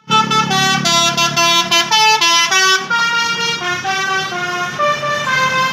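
A Basuri 'telolet' multi-tone bus air horn playing a quick melody: loud stepped notes, several pitches at once, changing a few times a second. A low rumble sits underneath for the first three seconds.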